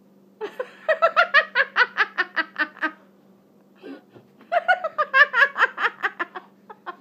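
Hearty laughter in two long bursts of rapid ha-ha pulses, about six a second, with a short pause between.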